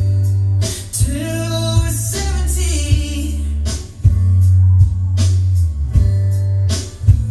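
A slow male-sung pop ballad with guitar played back through a car audio system, with a heavy, prominent sub-bass.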